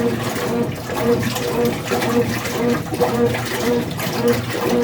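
Washing machine agitating a load in water, with the motor hum and water sloshing pulsing evenly about twice a second; the machine is run in its agitate cycle to work loose a garment caught in the drum.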